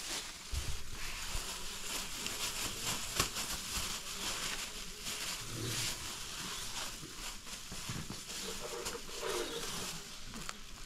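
Thin clear plastic bags crinkling and rustling in the hands as pieces of raw goat meat are packed into them, with irregular crackles and a few sharper ticks.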